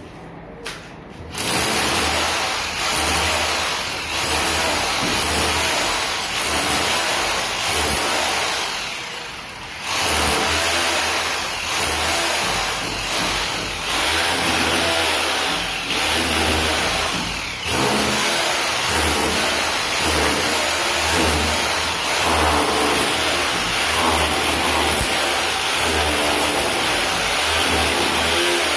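A 2-26 rotary hammer drill hammering into a plastered brick wall. It starts about a second and a half in and runs in spells of a few seconds, with brief pauses between them.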